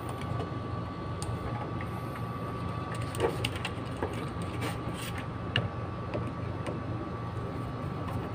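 A few faint clicks and scrapes of a screwdriver and wire at a control relay's terminal screws, over a steady hum with a thin high tone.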